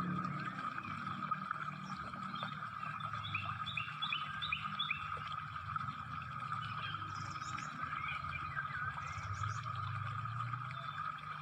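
Birds chirping, with a quick string of short calls a couple of seconds in, over a steady high-pitched chorus and a low rumble.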